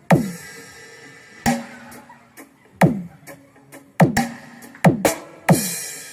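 DJ dance remix played through a small sound system for a sound check: a run of six heavy bass-drum hits that each drop in pitch, with a cymbal crash on the first and last.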